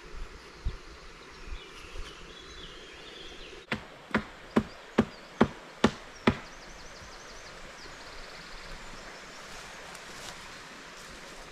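An axe chopping wood: seven quick, evenly spaced strokes a little over two a second, then stopping.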